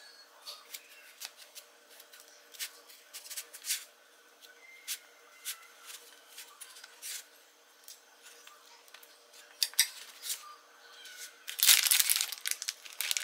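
Sandwich making by hand: scattered light clicks and taps, then near the end about a second and a half of loud crinkling and tearing.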